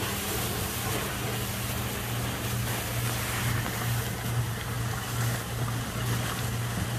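A steady low motor hum over an even rushing noise, with no change in pitch.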